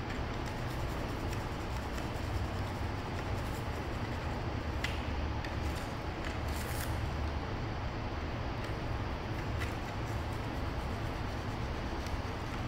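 A small hand knife scraping and cutting at carved white trim in short, faint strokes, with a few louder scrapes about five and seven seconds in. A steady low rumble of room noise runs underneath.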